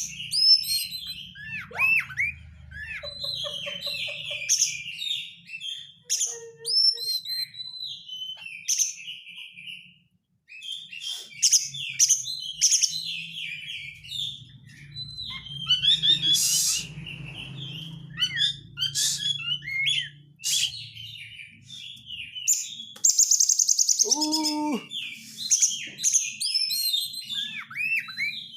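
Oriental magpie-robin (kacer) singing a varied, continuous run of loud whistled phrases and quick chattering notes, with a fast buzzy rattle near the end.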